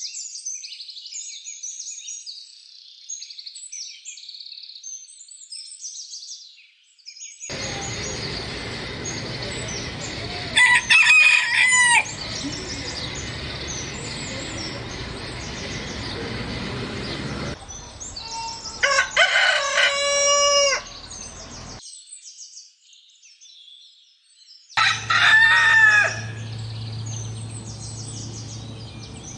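Rooster crowing three times, each crow a loud drawn-out call, over a steady background hiss. Small birds chirp during the first several seconds.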